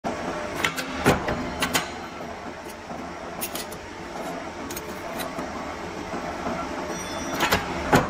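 Punching machine running with a steady mechanical hum, cut by sharp metal clanks from the die and the steel blanks. The loudest clank comes about a second in, and another cluster comes near the end as the upper die comes down.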